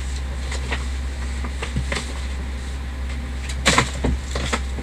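Packaging rustling and crinkling as a new football shirt is pulled out of its packet, in short irregular bursts with the loudest handling a little past three and a half seconds in, over a steady low hum.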